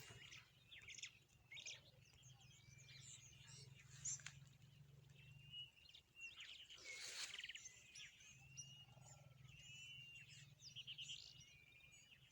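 Faint outdoor birdsong: several birds chirping and whistling in short, overlapping calls throughout. A low steady hum runs underneath for most of the first half and again in the second half.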